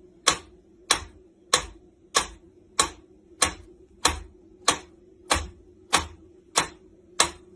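Sharp, evenly spaced ticks or taps, about one every 0.6 seconds, over a faint steady hum.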